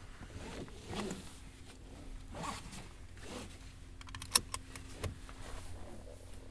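Car seatbelt being pulled across and fastened: the webbing slides in a few short swishes, then the buckle clicks sharply about four seconds in, with another click a second later.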